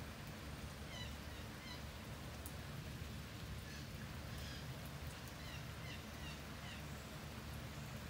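Small bird chirping in short groups of quick, high notes, about a second in, around four seconds, and again between five and seven seconds, over a steady patter of light rain and a low hum.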